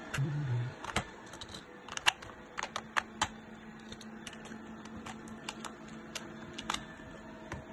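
Batteries being pressed into the plastic battery compartments of a toy dinosaur and the plastic covers fitted back on: a run of irregular sharp clicks and knocks, thickest in the first half, after a brief low rumble of handling at the start.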